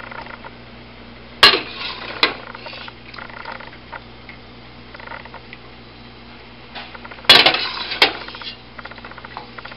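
A metal spoon clanking and scraping against a stainless steel pot while cooked pasta is scooped out. Two sharp clanks come about a second and a half in and two more around seven to eight seconds in, with lighter scraping between.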